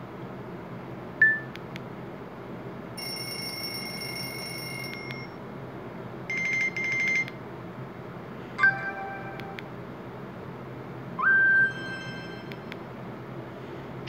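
Nokia E72 alert tones played one after another through a Nokia 150's small loudspeaker, over a steady hiss: a brief beep about a second in, a longer held tone around three seconds in, two quick bursts, a short chime, and near the end a tone that slides up and then holds.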